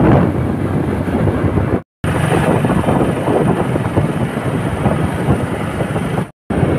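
Wind rushing over the microphone of a moving motorcycle, with the bike's engine running underneath. The sound cuts out completely twice, briefly.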